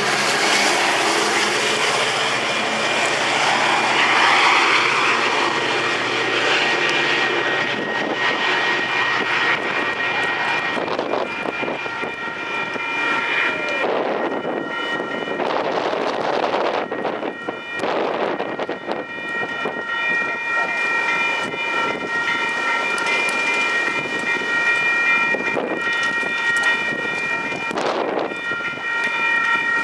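A train passing with the rushing rumble of wheels on rail, then a train horn sounding in several long blasts, separated by breaks, starting about a third of the way in.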